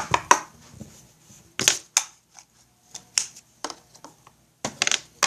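Play-Doh cake factory toy set being handled: irregular sharp clicks and crackles, about ten of them spread over a few seconds.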